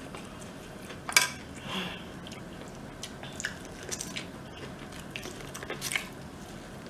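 Close-up eating sounds from a mukbang: biting and chewing food, with scattered small clicks and a sharp click about a second in.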